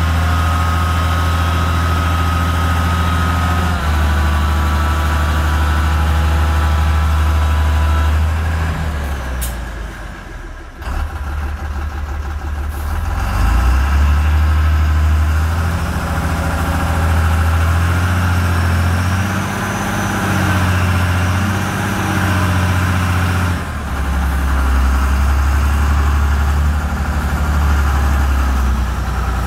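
Dump truck's diesel engine running at raised revs to drive the hydraulic ram that tips the loaded sand bed. The engine note quietens for a moment about ten seconds in, then picks up again and rises and falls.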